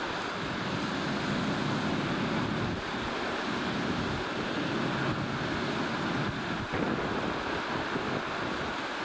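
Steady rushing of strong wind on the microphone, mixed with the wash of rough, breaking sea.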